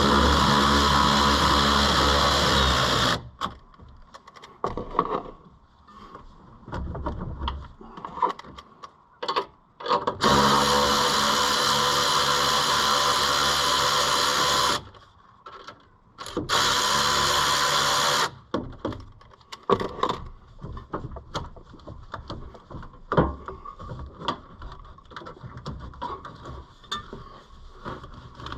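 Cordless power tool with an 11 mm socket spinning T-bolt clamp nuts loose on intercooler pipes. It runs in three steady whirring bursts: a few seconds at the start, a longer one about ten seconds in and a short one a few seconds later. Light clicks and clanks of the metal clamps and socket are heard between the bursts and toward the end.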